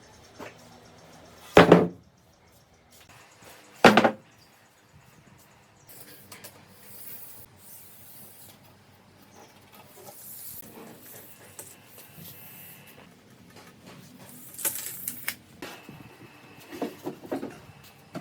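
Two loud, sharp knocks of wood on wood, a couple of seconds apart, then quieter scraping and handling noises, a short hiss and a few light clicks.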